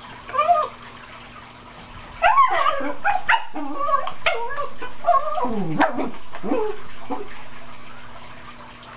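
Cairn terrier barking and yipping excitedly: one short bark about half a second in, then a rapid string of barks and yelps with bending pitch from about two seconds in, dying away around seven seconds.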